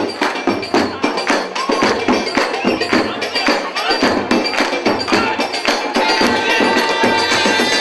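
Zaffe wedding procession music: fast, dense drum and percussion strokes with the crowd clapping along. A sustained high note joins about six seconds in.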